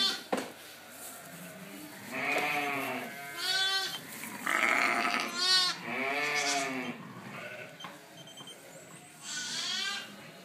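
Sheep bleating again and again, about six wavering calls, some deep and some higher-pitched. A single sharp click comes just after the start.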